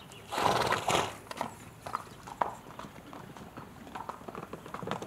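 Horse hooves clopping on brick paving as a horse walks, with a loud rushing noise lasting under a second about half a second in.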